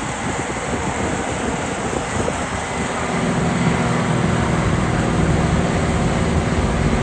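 Combine harvester running under load as it harvests close by. Its engine hum comes in steadily and a little louder about three seconds in. Before that, a propeller plane's engine drones overhead.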